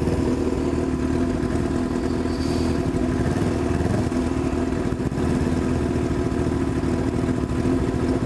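Honda CB1000's inline-four engine running at steady revs through a loud, straight-through exhaust, its low, even exhaust note the loudest thing throughout.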